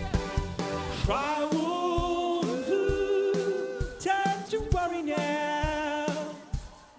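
Live new-wave band music: a male lead singer holds long, wavering notes, starting about a second in, over keyboards and a beat. The music drops in level near the end.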